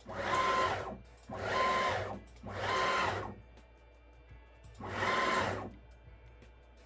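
Stepper motors of a Genmitsu PROVerXL 4030 V2 desktop CNC router driving the lead screws as the axes are jogged: four short moves, each about a second long, ramping up and down with a steady whine. The axes are being run back and forth to spread freshly applied dry lube along the lead screws.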